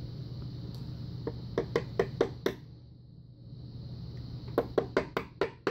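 Small metal lock parts clicking and tapping as a brass pin-tumbler lock is taken apart: a quick run of about five sharp clicks, a pause, then another run of about five.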